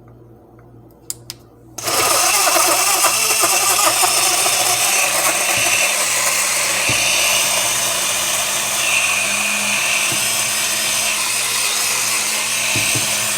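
BlendJet 2 portable blender switched on about two seconds in after two faint clicks, its motor and blades running loud and steady through milk and mango chunks. The owner thinks it is struggling, with something caught at the bottom.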